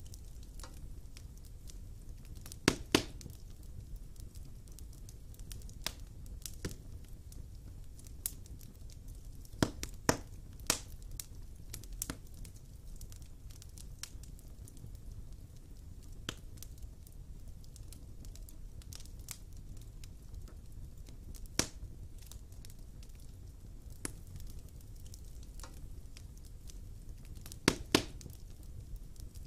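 Wood fire burning in a fireplace: a steady low rumble of flames with scattered crackles and a few loud pops, some coming in quick pairs.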